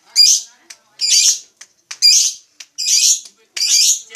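Lovebird calling: five shrill, harsh chirps, repeated about once a second.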